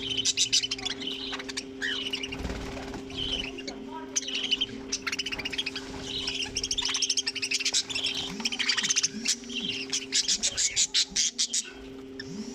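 A flock of budgerigars chattering and chirping continuously in rapid, overlapping bursts, over a steady low hum.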